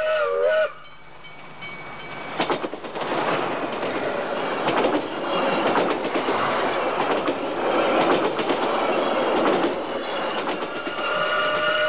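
Railway passenger carriages rushing past close by, their wheels clattering rhythmically over the rail joints. A train whistle sounds a steady note briefly at the start and again near the end.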